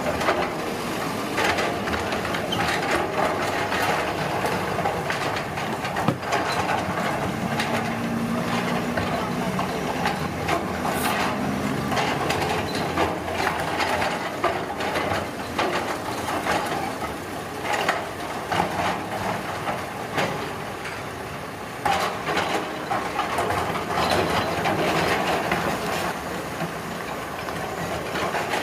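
Heavy road-construction machinery at work: a steady engine drone with frequent sharp knocks and clanks.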